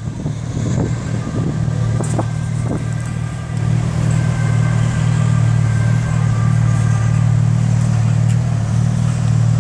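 Steady low rumble of city street traffic heard from a moving bicycle, with a slow-driving van close ahead. It gets louder about a third of the way in, and a few faint thin tones and light clicks sit above it.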